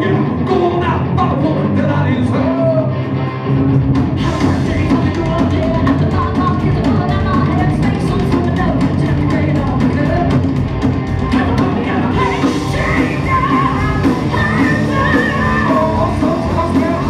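Live rock band playing: electric guitar, bass guitar and drum kit with a singer. The full band with drums comes in strongly about four seconds in, after a brief dip.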